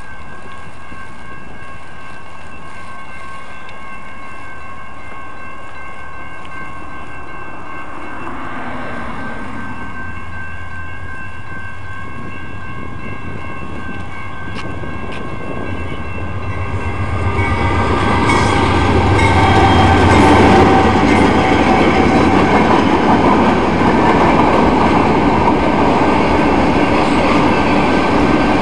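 Railroad crossing signal ringing steadily, then a train comes through the crossing from about seventeen seconds in, growing loud as the locomotive and cars pass with wheels clattering on the rails.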